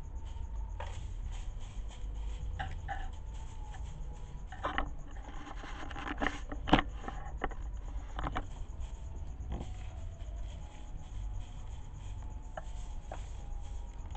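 Duckling pecking corn kernels off a tile floor: irregular clicks and scrapes of its bill against the tiles and kernels, the sharpest about six and a half seconds in.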